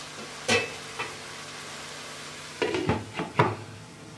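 Thick chicken, potato and pea curry sizzling steadily in a wok. A few sharp knocks and clinks against the pan punctuate it: a ringing one about half a second in, and a cluster of them near three seconds.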